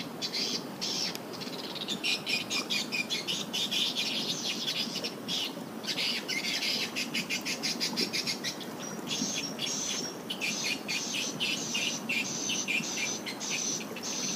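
Swiftlets chirping: a dense, rapid stream of short high calls, many a second, with a brief lull about six seconds in.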